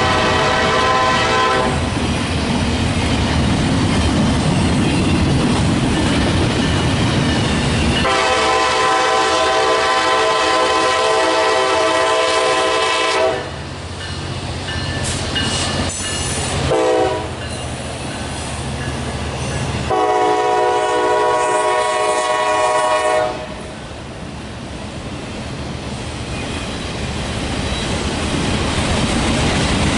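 Locomotive air horn sounding a chord of several tones in a long–long–short–long pattern: the grade-crossing signal. It is blown over the loud rumble of the train, and the rumble swells again toward the end.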